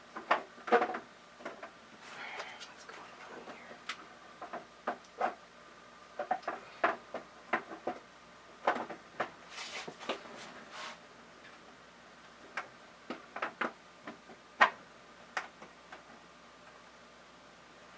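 Irregular light clicks and knocks of hard plastic parts being handled and fitted on an egg incubator, a few at a time with short gaps, thinning out in the second half.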